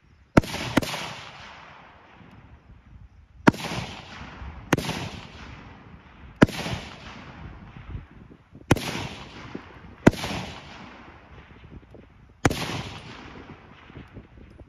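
Eight rifle shots from service rifles being fired at targets, irregularly spaced one to two and a half seconds apart, with two about half a second apart at the start. Each shot is a sharp crack followed by a rolling echo that fades over about a second.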